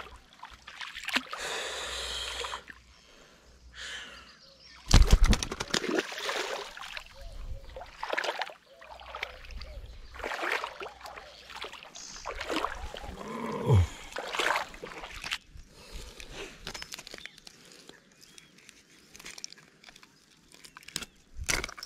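Irregular splashing and sloshing of shallow, weedy water as a caught snakehead is handled, the loudest splash about five seconds in.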